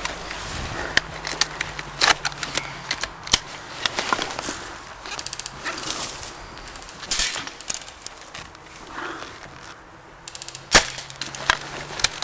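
Airsoft guns firing: scattered sharp single snaps at irregular intervals, with a couple of short rapid bursts, the loudest shot a little before the end.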